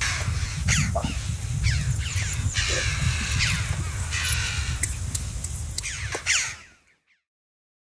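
Crow-family birds calling repeatedly with short, harsh, sweeping calls over a steady low rumble. The sound fades out to silence about six and a half seconds in.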